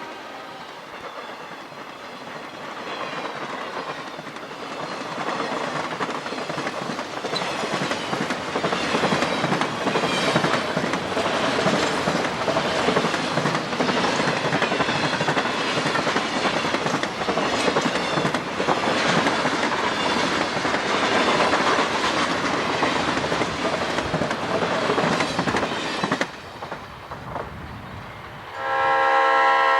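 A train rolling past close by, its wheels clattering over rail joints under a steady rumble of cars, with a horn dying away at the start. Near the end the sound cuts off and a locomotive horn chord begins to blow.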